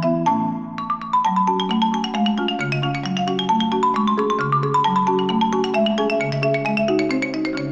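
Background music: quick mallet-percussion notes, like a marimba or xylophone, over a sustained bass line.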